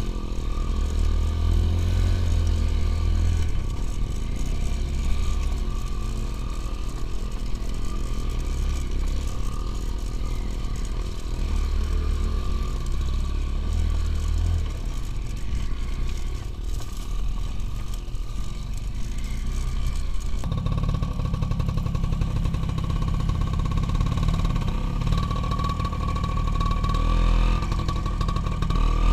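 Motorcycle engine running continuously while riding off-road. About two-thirds of the way through, its note abruptly steps up higher and stays there.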